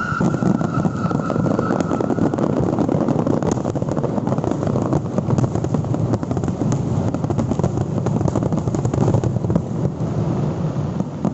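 Fireworks finale barrage: a dense, continuous stream of crackling bursts over a low rumble. A falling whistle fades out in the first two seconds.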